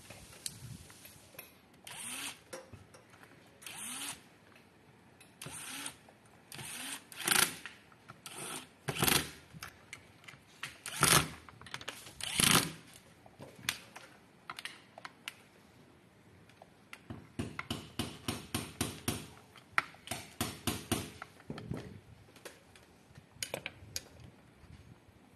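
Electric screwdriver driving screws into a side plate in repeated short runs of about a second each, then a longer stretch of rapid clicking.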